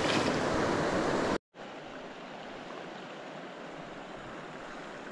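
Creek water rushing steadily over rocks. It cuts out for an instant about a second and a half in, then carries on more quietly.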